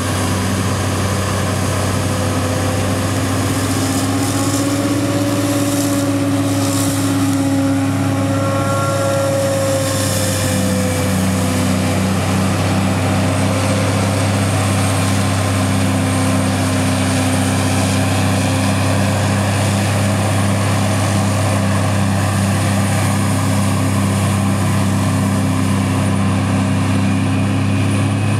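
John Deere 8800i self-propelled forage harvester chopping rye, with the tractor pulling the trailer alongside: a loud, steady engine drone whose hum wavers a little in pitch, and a faint high whine over it.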